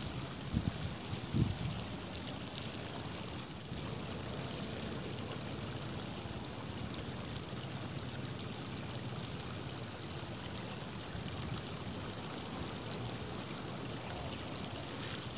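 Steady rushing outdoor background noise with no voices. From about four seconds in, a faint high-pitched peep repeats about once a second.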